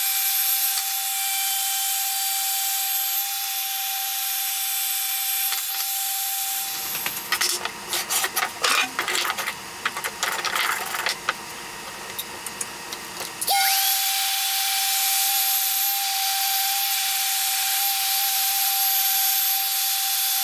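Electric sander running with a steady whine and hiss, sanding paint off an old hatchet. For several seconds in the middle the whine gives way to uneven, stroke-by-stroke scraping and rubbing, then the steady whine returns.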